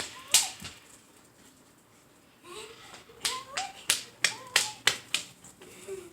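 Dogs at play: a run of sharp clicks and slaps with short squeaky yips or whines, a flurry at the start, a pause of about two seconds, then another flurry.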